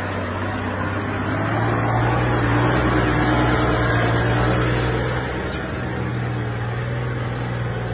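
Engine of a small off-road flatbed truck running steadily under load as it climbs a steep dirt slope. It grows louder and a little higher from about one and a half seconds in, then eases back after about five seconds.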